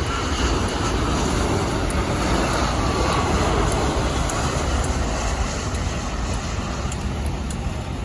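Steady low rumble of engine noise, swelling slightly a couple of seconds in and easing again.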